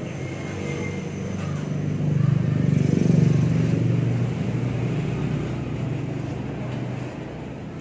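A motor vehicle's engine passing by: a low hum that swells to its loudest about three seconds in and then slowly fades.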